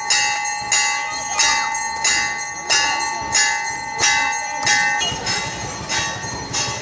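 Temple bell rung for aarti, struck over and over at about one and a half strikes a second, each strike ringing on. Its clear ringing tone drops away about five seconds in while the striking goes on.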